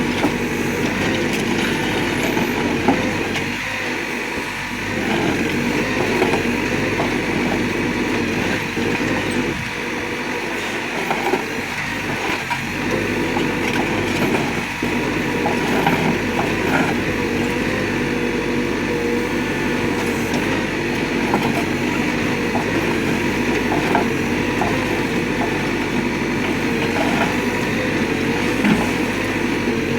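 Terex TLB990 backhoe loader's diesel engine running steadily under hydraulic load while working a TP10V concrete pulverizer, its pitch wavering slightly at times, with scattered sharp cracks and knocks from concrete being crushed.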